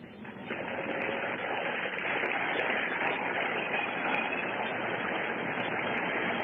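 Audience applause from a congregation, a steady wash of clapping that swells in about half a second in and holds.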